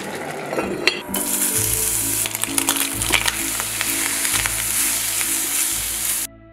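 Bacon, onion and button mushrooms sizzling as they are stir-fried in a stainless steel pan, stirred with a spatula that makes scattered clicks. The sizzling starts about a second in and cuts off suddenly near the end.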